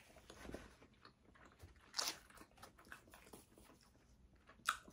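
A person chewing and biting pizza close to the microphone: soft mouth sounds, with two short, sharp sounds, one about two seconds in and one near the end.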